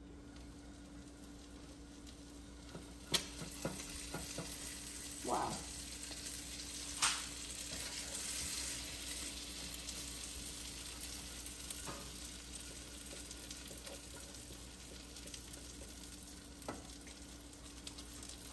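Egg and pancake batter sizzling in a hot frying pan under a glass lid. The sizzle grows louder about three seconds in, and a few sharp clinks and a short scrape come from the lid and pan as they are handled.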